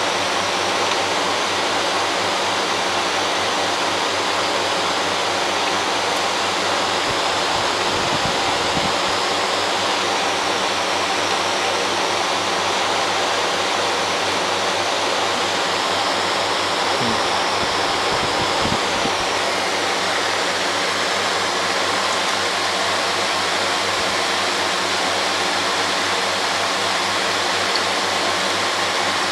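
Steady rushing of water circulating in a reef aquarium, with a faint steady hum underneath.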